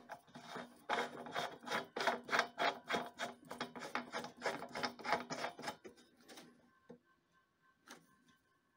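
Plastic air filter housing being screwed by hand onto the compressor pump's threaded metal intake port: a quick run of short scraping, rasping strokes that stops about six and a half seconds in, followed by a single click near the end.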